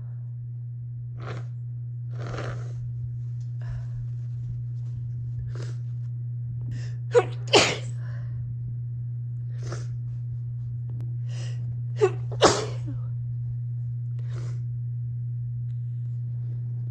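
A person sneezing, set off by dust: faint catching breaths build up, then two quick sneezes about seven seconds in and two more about twelve seconds in. A steady low hum runs underneath.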